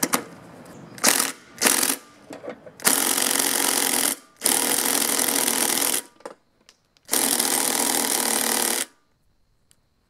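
Cordless impact driver hammering on a Honda mower engine's flywheel nut: two short blips, then three runs of about a second and a half each. The nut does not break loose.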